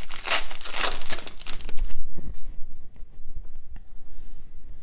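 Foil wrapper of a Panini football card pack crinkling for about two seconds as the cards are pulled out, then fainter clicks of the card stack being handled.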